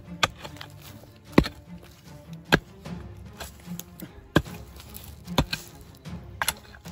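A digging tool strikes stony soil about once a second, each strike short and sharp, with loose earth and small stones scraped between strikes.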